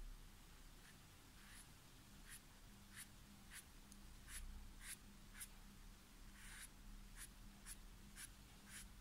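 Flat watercolour brush stroking black paint onto paper: faint, short swishes of the bristles, about one every half second to a second.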